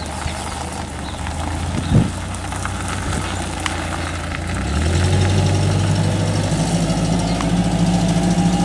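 Hyster H1.8FT LPG forklift's engine running as the truck drives and turns, its pitch and loudness rising a little before halfway through as the engine speeds up. A single sharp knock about two seconds in.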